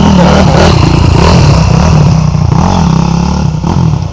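Dirt bike engines revving hard as riders pass through a puddle, the pitch rising and falling again and again as they work the throttle.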